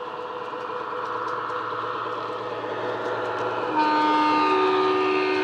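Bachmann OO-gauge Class 70 model locomotive's LokSound DCC sound decoder (Coastal DCC sound file, EM1 speaker) playing the diesel engine running, which grows louder as the model approaches. About four seconds in, the two-tone horn sounds: the low note first, then the high note joins, and both are held.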